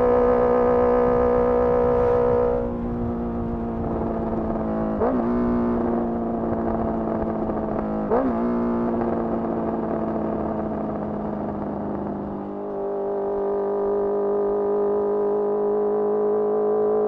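Honda CBR650R's 649 cc inline-four through a Mivv MK3 carbon exhaust, held at steady high revs, then the throttle closes about two and a half seconds in and the note drops. Two short throttle blips follow, about three seconds apart, then it settles into a steady lower note, with the low wind rumble easing a few seconds before the end.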